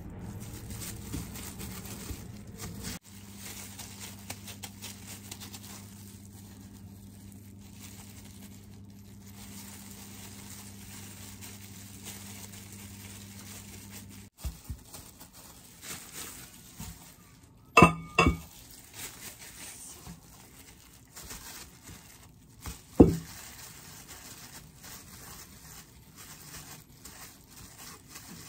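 Soft rustling of plastic-gloved hands handling and shaping dough balls on a silicone mat, over a steady low hum that cuts off about halfway. Two sharp clinks with a brief ring stand out later on, the first a quick double strike.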